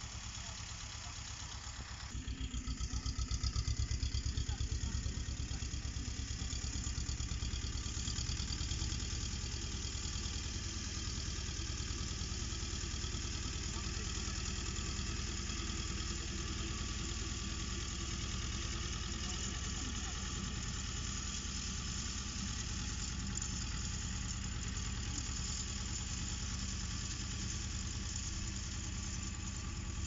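Vladimirets T-25A2 tractor's two-cylinder air-cooled diesel engine running steadily while the tractor pulls a wheel rake through cut hay. It gets louder about two seconds in.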